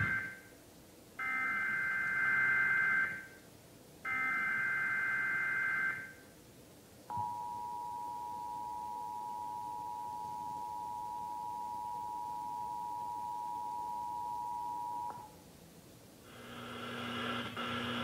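Emergency Alert System test alert played through a TV speaker: three short bursts of screeching SAME header data tones, then the steady two-tone attention signal held for about eight seconds. This is the start of the KGAN relay of a test tornado watch, and a new sound, likely the start of the spoken message, comes in near the end.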